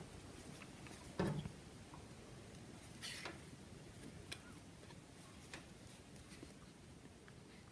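Faint rustling of yarn with a few soft clicks and taps as hands crochet half double crochet stitches with a crochet hook.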